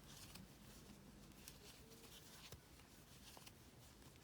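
Near silence: faint rustle of yarn and a few soft ticks of a crochet hook being worked through the stitches of a popcorn stitch.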